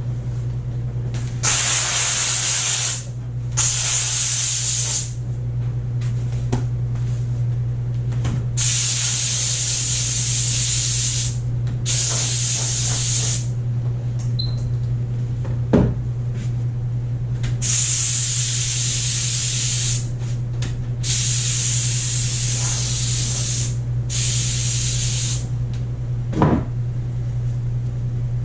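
Kärcher SC2 steam cleaner letting out steam in repeated hissing bursts of one to three seconds each, over a steady low hum. There are two short knocks along the way.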